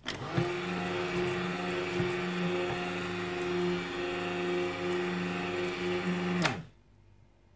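Mistral stick blender running in a jug of cold process soap batter, blending it toward trace. The motor hum starts suddenly, rises to a steady pitch within half a second, holds, then winds down and stops about six and a half seconds in.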